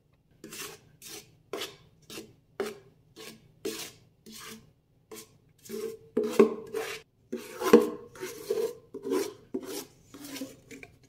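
A utensil scraping the inside of a metal pot in short rasping strokes, about two a second, as thick dulce de leche fudge is scraped out onto a tray; the strokes grow louder in the middle.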